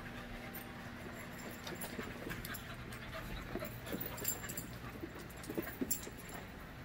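Five-month-old puppies wrestling in play: panting, with scattered light knocks and scuffles of paws and bodies on the rubber floor, a few sharper ones about four to six seconds in.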